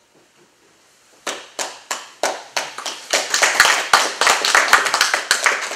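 Audience clapping, beginning with a few separate claps about a second in and quickly building into steady applause.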